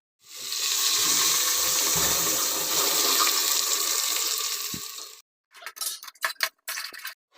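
Water running or being poured in a steady rush for about five seconds, stopping abruptly, followed by a few short broken-off noises.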